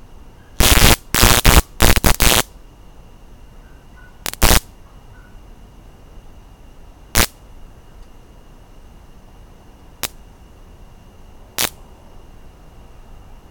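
Electric bug zapper killing insects on its charged grid: a run of loud crackling zaps in the first two and a half seconds, another around four and a half seconds in, then single sharp snaps about seven, ten and eleven and a half seconds in.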